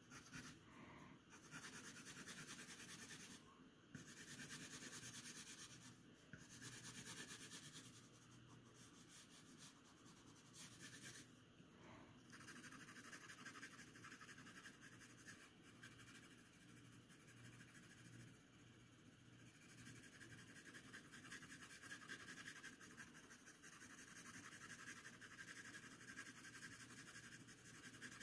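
Graphite drawing pencil shading on paper: faint, repeated strokes of the lead across the sheet.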